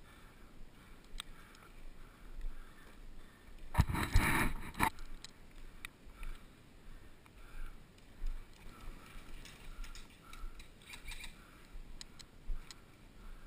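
Airsoft guns firing, a rapid burst of shots about four seconds in that is the loudest sound, with scattered single shots and clicks later on.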